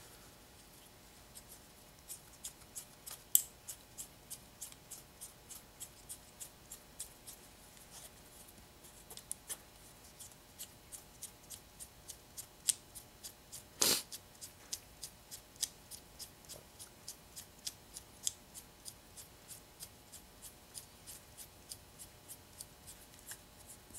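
Spring-loaded ball detent in a micrometer carriage stop's thimble clicking steadily, about two to three small ticks a second, as the thimble is turned along the threaded steel spindle. One louder knock a little past halfway.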